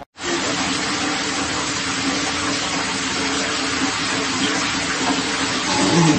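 Water running steadily into a bathtub.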